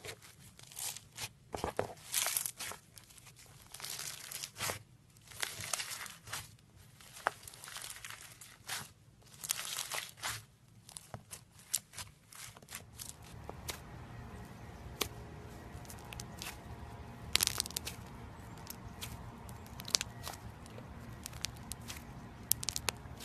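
Floam (slime packed with foam beads) crunching and crackling in quick clusters of pops as fingers press and knead it. About 13 seconds in this gives way to a steadier low background noise with only occasional sharp clicks, as a soft slime is squeezed.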